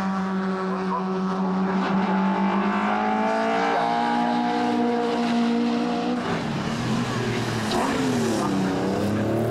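Alfa Romeo race car engines running hard as the cars pass on the circuit. The engine note climbs in pitch, then drops and climbs again near the end.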